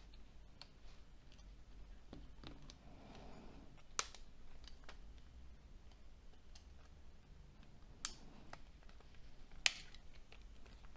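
Light clicks and taps of a Nokia C6-00 smartphone and its small parts being handled during repair work, with three sharper clicks spaced a few seconds apart.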